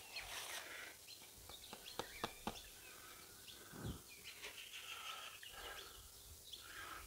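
Faint birdsong, with a few light clicks around two seconds in and a soft thump near four seconds.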